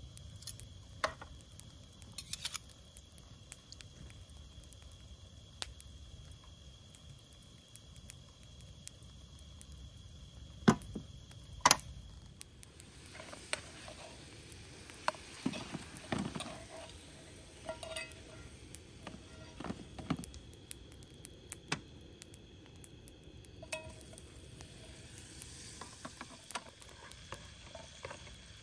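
Irregular light clicks and clinks of small objects being handled, with two sharper knocks about eleven and twelve seconds in and busier clicking after that.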